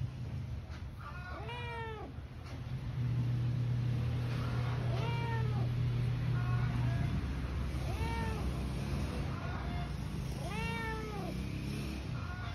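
A cat meowing: four clear meows about three seconds apart, each rising and then falling in pitch, with shorter, quieter mews between them. A steady low hum runs underneath.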